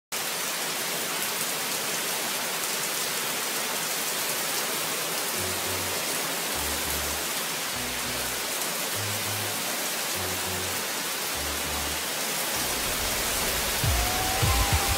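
Steady hiss of heavy rain. About five seconds in, a line of low bass notes from music comes in under it, and heavier low thumps join near the end.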